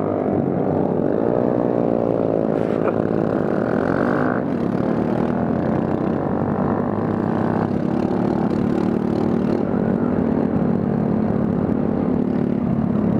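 Honda Grom mini motorcycle's single-cylinder engine running under way, its pitch rising and falling with throttle and gear changes, over a rush of wind noise.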